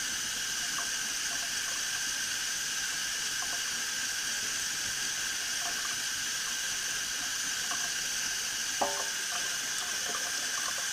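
Thin stream of tap water running steadily into a stainless steel sink, with faint scratching of 2000-grit paper as a pistol barrel is wet-sanded under it. One short sharp knock about nine seconds in.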